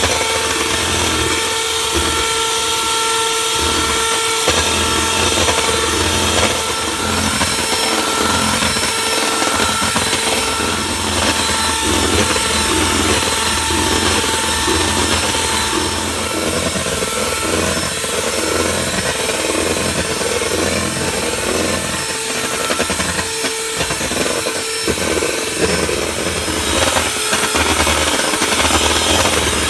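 Electric hand mixer running steadily, its twin beaters whisking cream in a stainless steel bowl as the cream thickens into whipped cream.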